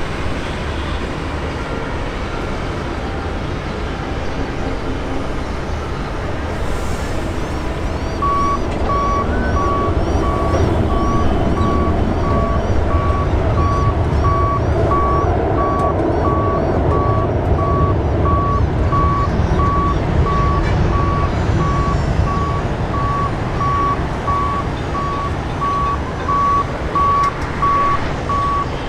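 A vehicle's reversing alarm beeping steadily, about one and a half beeps a second, starting about eight seconds in and stopping near the end, over a loud steady low rumble.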